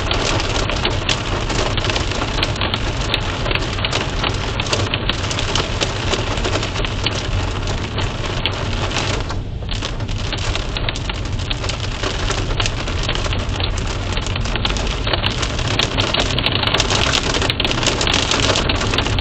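Steady heavy rain falling and pattering on a surface, a dense hiss made of many small drop impacts.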